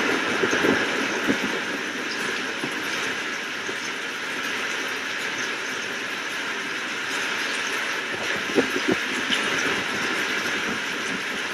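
Steady hiss of heavy rain, with short low rumbles of thunder at the very start and again about eight and a half seconds in.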